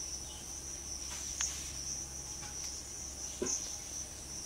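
Insects chirring in a steady high-pitched chorus, with two faint clicks partway through.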